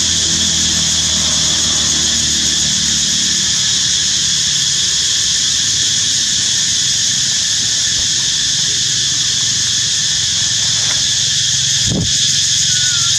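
Steady, loud, high-pitched drone of an insect chorus in the forest. A low engine hum fades out in the first few seconds, and there is a single knock near the end followed by a brief faint squeak.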